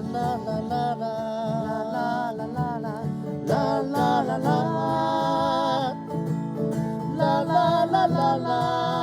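Acoustic guitar strummed under a voice singing a held, wavering melody with no clear words.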